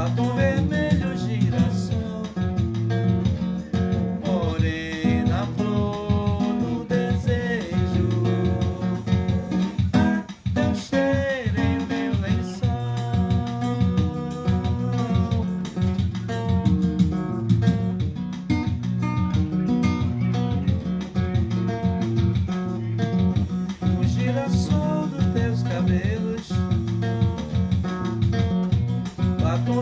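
Acoustic guitar played in an instrumental passage, plucked and strummed with a steady rhythmic bass line.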